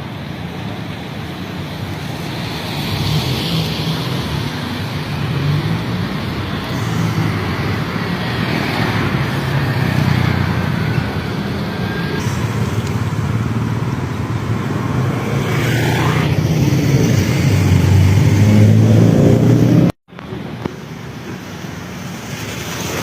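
A motor vehicle running on the road: steady engine and road noise that slowly grows louder, broken by a sudden cut about twenty seconds in, after which it carries on more quietly.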